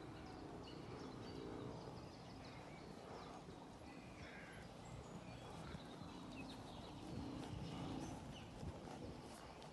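A horse's hooves trotting on a sand arena surface: soft, muffled thuds that grow a little louder near the end as the horse comes close.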